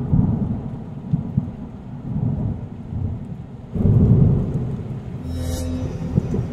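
Cinematic outro sound effect: a deep, noisy rumble that swells about four seconds in, with a short whoosh soon after.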